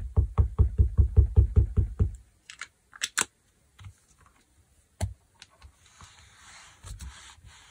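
Rubber stamp and ink pad being dabbed together rapidly, about five soft taps a second for the first two seconds while the stamp is inked with black ink, then a few light clicks and a brief rustle of handling.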